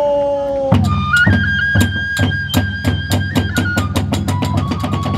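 A chanted line's long held final note ends under a second in, and the kagura hayashi ensemble takes over: a bamboo flute holding a high note that steps down partway through, over steady beats of a large drum and clashing hand cymbals that quicken toward the end.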